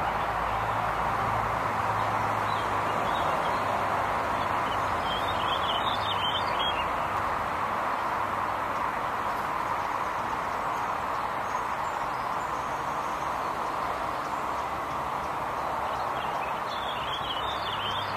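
Steady outdoor background noise with a faint low hum, and a bird chirping in two brief bouts, about six seconds in and near the end.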